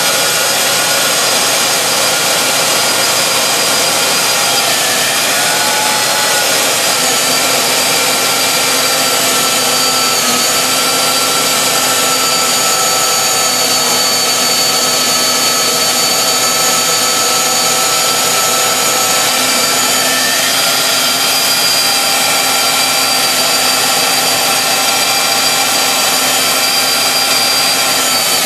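Handheld power drill running steadily under load, its bit cutting through a guide fixture into an aluminum Harley-Davidson Twin Cam cylinder head to make the hole for a 10 mm manual compression release. The steady whine has several pitches at once that waver slightly as the bit bites.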